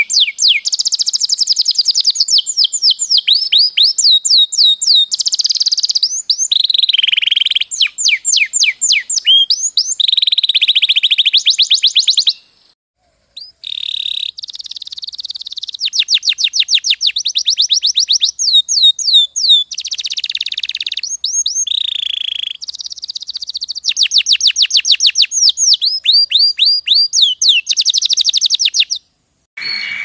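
Domestic canary song: long runs of rapid, repeated falling whistled notes and buzzy rolls, changing from one trill to the next every second or two. The song breaks off briefly about halfway through and again near the end.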